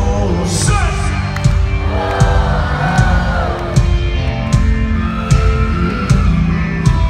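Live country-rock band playing on stage, guitars and sustained chords over a steady drum beat, with a hit about every three-quarters of a second, heard from the crowd.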